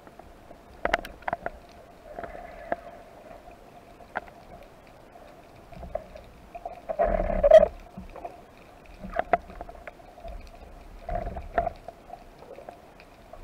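Underwater sound heard through a speargun-mounted camera: scattered clicks and knocks from handling the speargun over a steady hum, with a louder rush of noise about seven seconds in.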